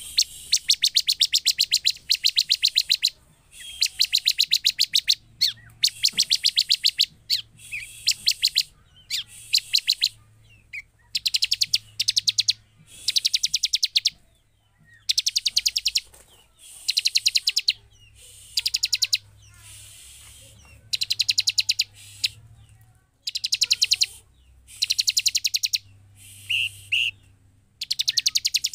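Bar-winged prinia (ciblek) singing: about twenty loud bursts of rapid, high-pitched ticking notes, each about a second long, with short pauses between.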